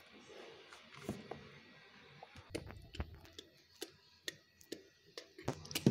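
Computer mouse and keyboard clicking irregularly, a few sharp clicks a second, coming thicker near the end.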